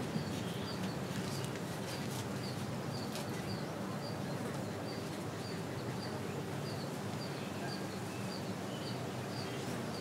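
A bird repeating a short high chirp over and over, about two a second, over a steady low background hum.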